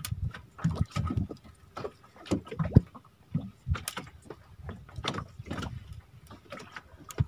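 Water slapping against the hull of a small fishing boat at sea, with irregular splashes and knocks, a few sharper than the rest.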